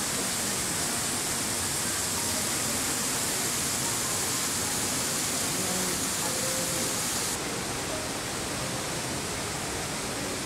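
Steady rushing hiss of falling water from an indoor waterfall in a tropical conservatory. The high, bright part of the hiss drops away abruptly about seven seconds in.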